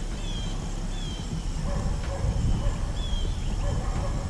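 Low rumbling wind noise on the microphone, with a few short, falling bird chirps.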